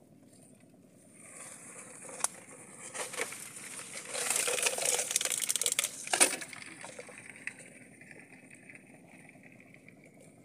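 Plastic bottle handled and tipped out over a plastic bucket: scattered faint clicks, then a loud crackling, scratchy rattle for about two seconds that ends in a sharp knock.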